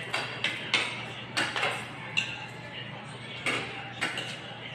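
Spoons and forks clinking and scraping on plates and bowls as several people eat: irregular sharp clicks, with one ringing clink about two seconds in.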